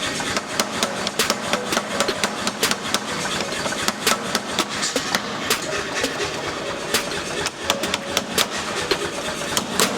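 Belt grinder running with a steel knife blank held against the belt to grind its profile: a steady tone under constant gritty crackling.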